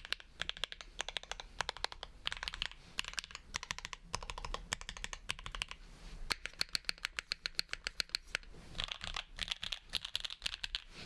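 Typing on a Monokei Kei R2 mechanical keyboard with lubed, filmed linear switches (polycarbonate housings, POM stems), a polycarbonate plate and GMK keycaps. Fast runs of keystrokes are broken by short pauses.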